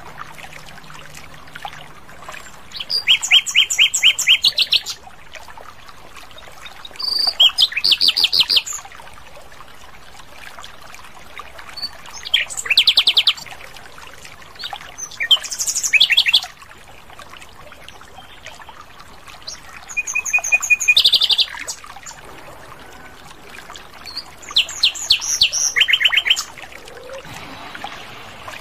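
Common nightingale singing: six loud phrases of rapid repeated notes and trills, each one to two seconds long, separated by pauses of a few seconds, over a faint steady hiss.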